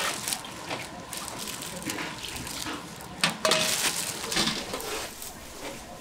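Metal ladle clinking and scraping against an aluminium basin while braising sauce is scooped out, with plastic bags crinkling. A sharp clink about three seconds in is the loudest.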